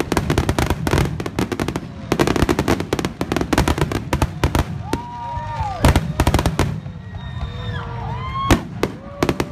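Aerial fireworks in a finale barrage: a rapid, dense run of crackling bursts that thins out after about five seconds into scattered bangs. Long gliding tones, rising and falling, sound over the second half.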